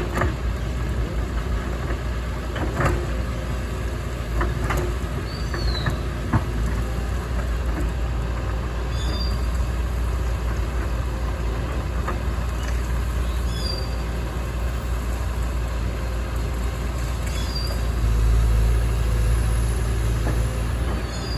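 Excavator's diesel engine running steadily while it works, with several sharp knocks in the first few seconds. The engine grows louder about eighteen seconds in, as if taking more load.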